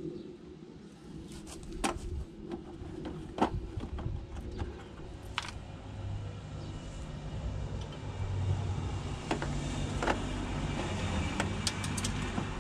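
Sharp metallic clinks and knocks of hand tools being worked on a wiper-arm puller, a handful of separate strikes, over a low rumble that builds up in the second half.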